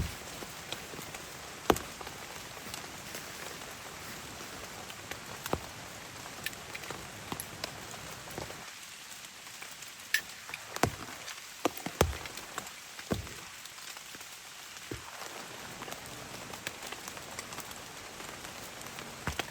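Rain falling steadily, with scattered heavier drops ticking sharply now and then.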